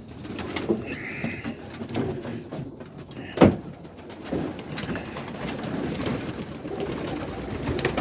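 Domestic roller pigeons cooing in a small loft, a steady low murmur of coos with scattered clicks and rustles. A single sharp sound about three and a half seconds in is the loudest thing in it.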